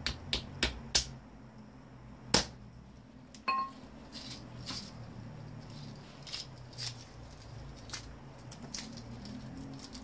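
Scattered sharp metal strikes and knocks, the loudest about two and a half seconds in and one with a brief metallic ring about a second later, then lighter taps: hammering on a microwave oven's transformer to knock the copper winding free of its iron core.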